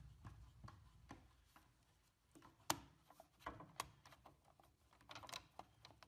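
Near silence with faint, scattered light clicks and taps; the sharpest click comes a little under three seconds in.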